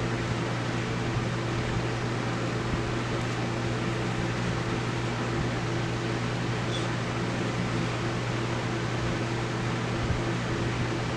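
Steady mechanical hum with an even hiss, like a running fan, with a couple of faint small clicks.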